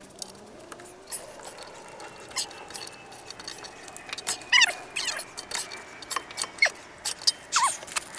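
Sped-up workshop sound from a brake job: a quick patter of clicks and metal clinks from tools and brake parts, with a few brief high-pitched squeaks, like fragments of fast-forwarded speech.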